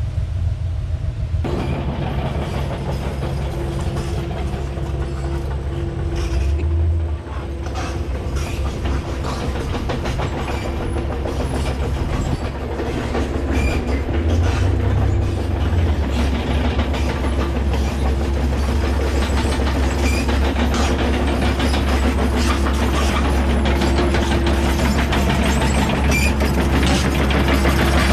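Excavator diesel engine running steadily with frequent clanks and rattles, getting louder about a second and a half in.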